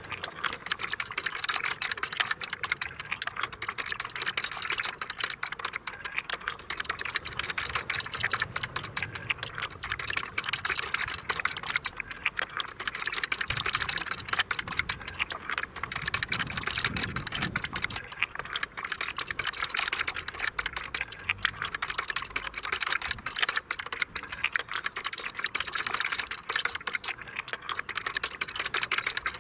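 Balls rolling through a wooden kinetic marble run, its tipping track levers lifting balls step by step: a dense, continuous clatter of small wooden clicks and knocks.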